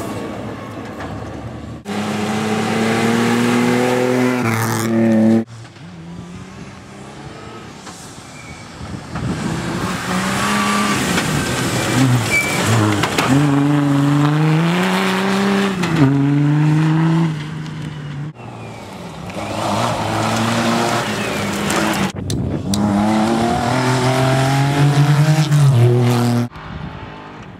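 Off-road rally cars racing past one after another, engines revving hard and easing off through gear changes. The sound cuts abruptly from one pass to the next several times.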